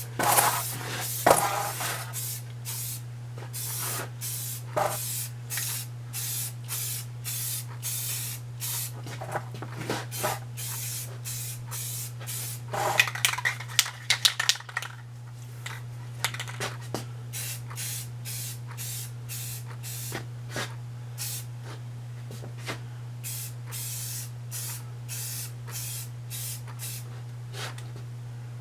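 Aerosol spray-paint can spraying black paint in short, repeated bursts, about two a second, with a brief clatter of clicks in the middle.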